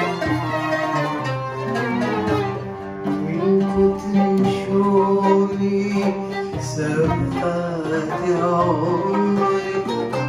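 Arabic takht ensemble playing an instrumental passage: violin and viola bowing the melody over plucked oud and qanun, with several long held notes.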